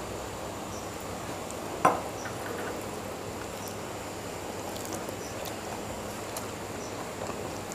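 Quiet hand-eating sounds: fingers mixing rice with curry gravy on a steel plate and soft chewing with small mouth clicks, over a steady hiss. About two seconds in, one short clink, the small steel gravy bowl being set down on the table.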